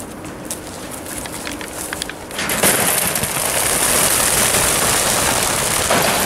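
A few sharp clicks and rattles from the transport truck's crates. About two and a half seconds in, a dense, loud clatter of wingbeats starts as hundreds of racing pigeons burst out at release and take off together.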